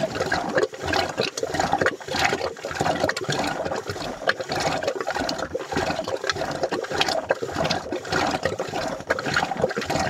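Milk sloshing and splashing inside a pot as a rope-pulled wooden churning stick is spun back and forth to churn butter. The splashing comes in a steady rhythm of strokes.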